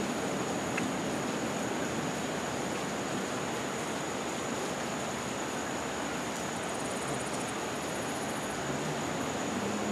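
Steady rushing outdoor background noise with a thin, high, steady tone, and a short, fast, high ticking trill about seven seconds in.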